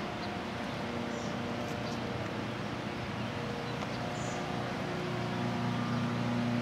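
Steady mechanical hum of distant machinery, with several low steady tones that grow a little stronger about five seconds in. A faint short high chirp sounds twice.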